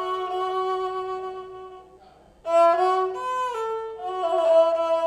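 Background music: a violin playing a slow melody of long held notes, with a short pause about two seconds in.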